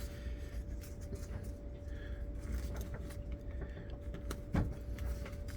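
Zipper chain and slider handled by hand: faint scattered clicks and rustles, one slightly stronger about four and a half seconds in, over a steady low hum with a faint constant tone.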